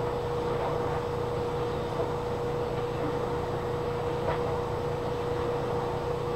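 Steady mechanical hum: one constant mid-pitched tone over a low rumble and hiss, with a couple of faint clicks.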